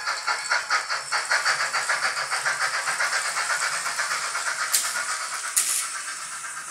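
Tsunami TSU-2200 steam sound decoder in a Mantua 4-6-2 model locomotive playing steam exhaust chuffs at a fast, even beat of about five a second. Two short, sharp hisses sound near the end, and the chuffing grows softer.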